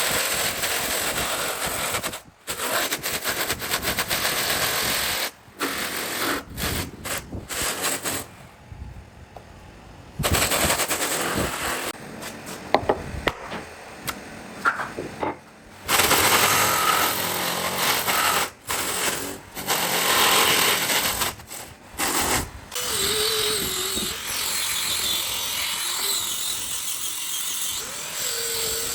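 Power tools working wood, heard as a string of short noisy passages that start and stop abruptly.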